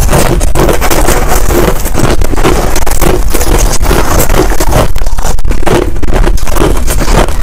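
Finely crushed ice being chewed close to a lapel microphone: loud, dense, continuous crunching and crackling.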